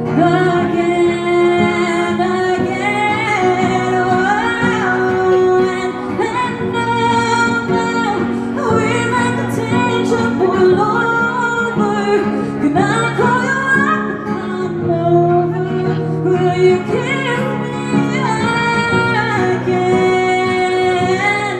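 A woman singing a pop song live, her voice sliding and held between notes with no clear words, over steady instrumental backing.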